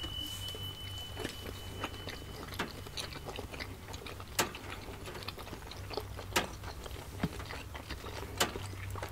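Close-miked chewing and biting of soft steamed siomai dumplings, with scattered wet mouth clicks and smacks. A thin steady high tone sounds for the first couple of seconds.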